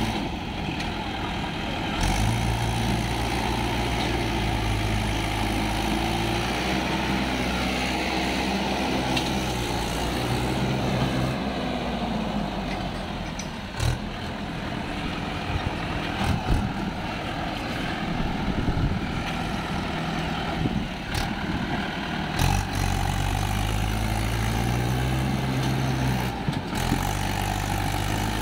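Swaraj 843 XM tractor's diesel engine working hard under heavy load, revving up and down as it drags a loaded sand trailer through deep mud. A few sharp knocks come near the middle.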